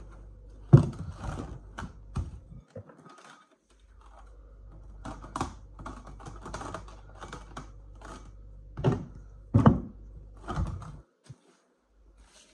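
Plastic cling film crinkling and crackling as it is stretched over a glass bowl and pressed down by hand: a string of irregular crackles and light taps, loudest about a second in and again around nine to ten seconds.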